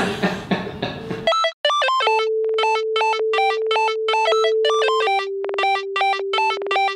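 A moment of laughter trails off, then an electronic title jingle cuts in abruptly: short synthesizer notes about three a second over a held tone that steps down slightly near the end.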